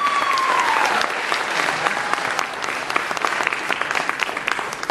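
Audience applauding steadily, with one high whoop gliding down in the first second; the clapping thins out near the end.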